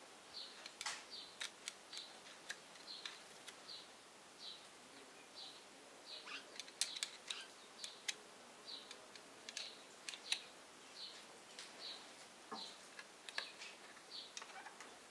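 A small bird chirping steadily, about two short high chirps a second, with sharp metallic clicks and taps of a wrench working the injector fittings of a diesel engine, the loudest clicks around seven and ten seconds in.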